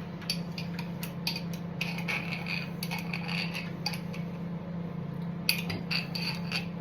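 Table cutlery clinking and scraping against a jar and plate in a series of short, irregular clicks as jam is put on toast, over a steady low hum.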